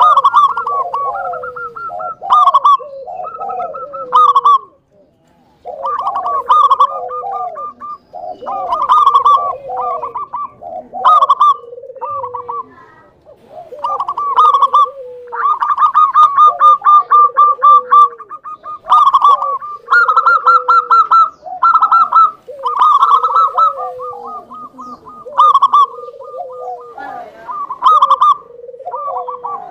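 Zebra doves (Indonesian local perkutut) cooing in repeated rapid, rolling phrases of falling notes, the calls overlapping almost without a break, with short pauses about five and thirteen seconds in.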